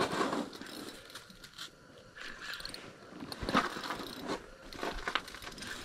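Spinning reel being cranked to reel in a hooked fish, its gears and handle giving irregular mechanical clicks and scrapes.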